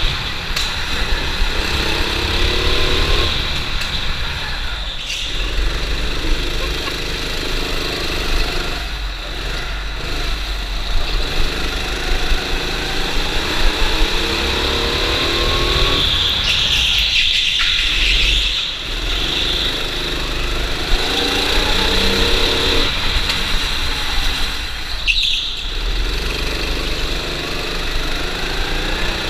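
Go-kart engine heard from on board at racing speed. Its pitch rises in long sweeps as it accelerates and drops away four times as the kart slows for corners.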